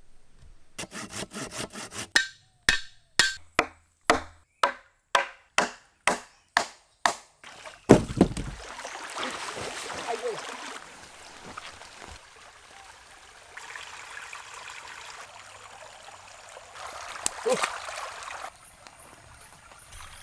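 Wood being chopped: a quick run of strokes, then about ten sharp chops roughly two a second. Near the middle comes a heavy thud. After that, water splashes and trickles, with a few knocks and one sharp knock near the end.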